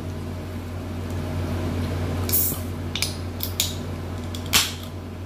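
Close-up eating sounds of fried chicken: several short crunchy, crackly bites and chews, the loudest about four and a half seconds in, over a steady low hum in the room.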